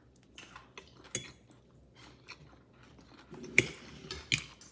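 A person chewing a mouthful of rice with string bean and beef adobo, with soft wet mouth sounds. About three and a half seconds in and again shortly after, a metal spoon clicks sharply against a plate.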